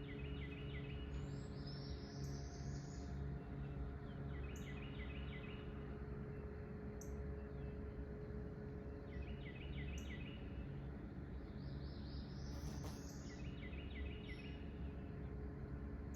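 Low, steady drone of a river towboat's diesel engines pushing coal barges, with songbirds repeating short phrases of quick notes over it, about every four to five seconds, and faint high chips every couple of seconds.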